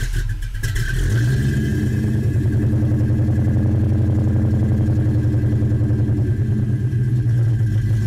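Car engine that has just started, briefly revving and then settling about a second in to a steady idle with a regular pulsing beat.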